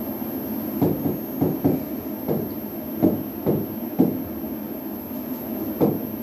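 A pen tapping and knocking against an interactive smartboard's screen as words are written on it: short, irregular knocks, about one or two a second, over a steady low hum.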